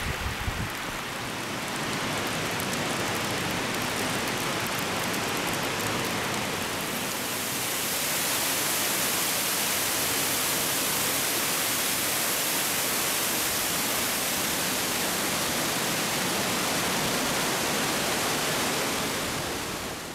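Waterfall pouring down inside a cave: a steady rushing of falling water that grows louder and hissier about seven seconds in.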